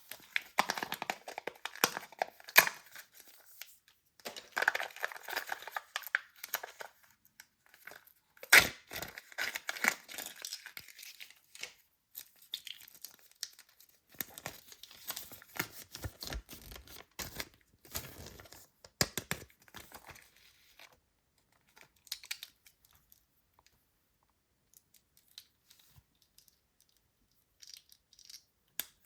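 Toy packaging being torn open and crinkled by hand in irregular bursts of tearing and rustling, with a sharp crack about eight seconds in; the handling dies down to occasional faint rustles for the last several seconds.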